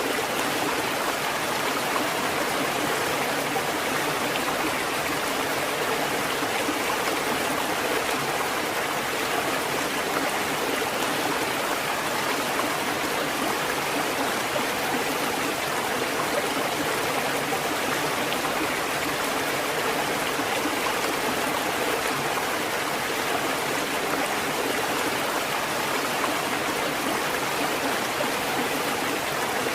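Water fountain running, a steady, even splashing and burbling of water with no knocks or breaks.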